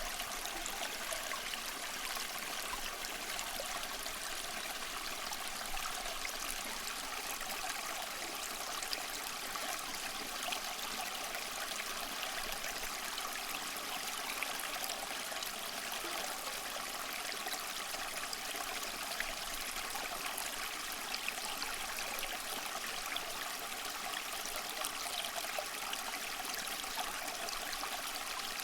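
Steady trickle of water running down a small tabletop waterfall fountain.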